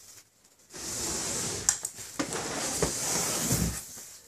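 A Dell PowerEdge R520 rack server's metal chassis being slid and turned around on a cardboard box: a steady scraping rub that starts about a second in, with a few light knocks.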